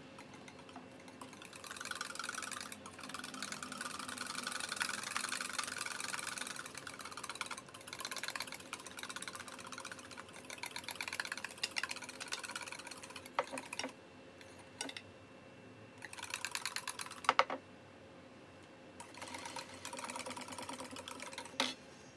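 Wire whisk beating fast against a stainless steel bowl, emulsifying oil and egg into mayonnaise. It comes as a rapid run of light clicks in several bouts with short pauses, and there is one sharper knock against the bowl about two-thirds of the way in.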